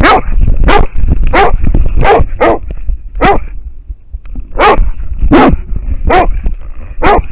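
American foxhound barking hard at a wild boar, about ten loud barks with a short gap about halfway, picked up right at the dog by a harness-mounted camera, under a steady low rumble of the dog's own movement against the mic.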